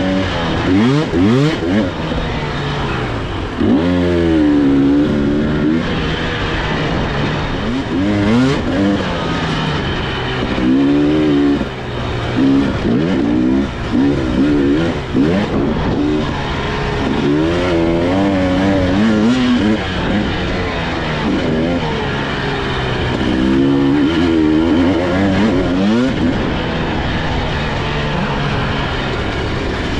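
Husqvarna TE300i two-stroke dirt bike engine revving up and down as the throttle is opened and closed, its pitch rising and falling over and over.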